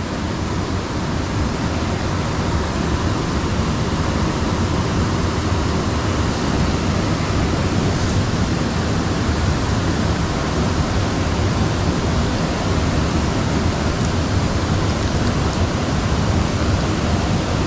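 Steady rushing of flowing water in a small ditch, an even, unbroken hiss.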